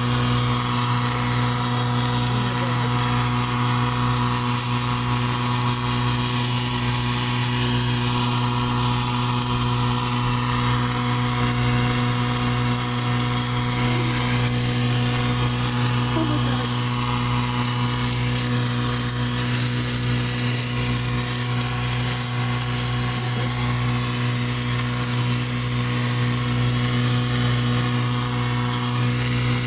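A steady, loud machine-like hum made of many fixed tones, strongest low down, with a slow even throb beneath it, unchanging throughout.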